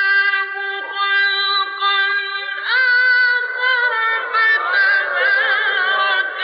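Male Quran reciter chanting in the melodic mujawwad style in maqam Ajam: long, high held notes with wavering ornaments, the pitch rising to a higher note about two and a half seconds in.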